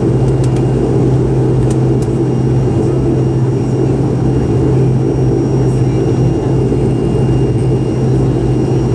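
Turboprop airliner engines and propellers running steadily while the plane taxis, heard inside the cabin as a constant low drone with a faint steady high whine.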